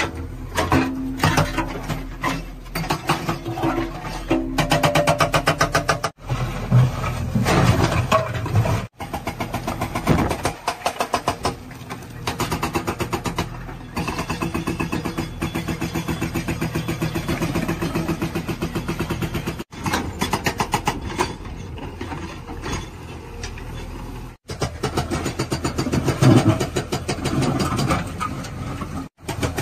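JCB backhoe loaders working rock. The diesel engines run under load while a hydraulic rock breaker hammers in long runs of rapid, even blows, and a digging bucket scrapes through broken stone. The sound breaks off abruptly several times.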